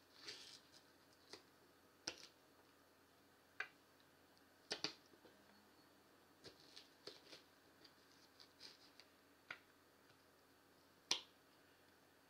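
Kitchen knife slicing a green chili into rounds on a wooden cutting board: faint, sharp knocks of the blade meeting the board, irregularly spaced at roughly one a second, the loudest near the end.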